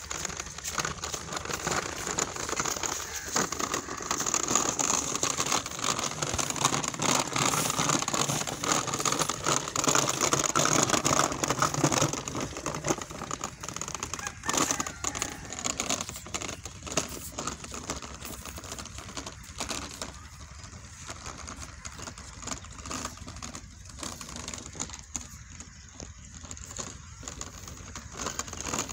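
Small plastic wheels of a child's ride-on swing car rattling and crackling as it is pulled over dirt and dry leaves, a steady gritty crackle that is louder in the first half and quieter after about halfway.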